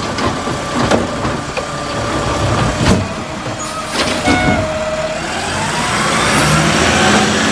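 Garbage truck sound: a truck engine running with hissing and a few knocks, and a rising whine in the last couple of seconds, cutting off abruptly.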